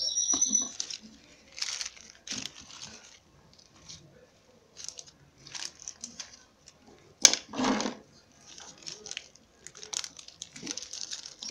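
Hands working potting soil and plastic nursery pots while transplanting moss rose seedlings: irregular rustles, crinkles and scrapes, with one sharp knock about seven seconds in.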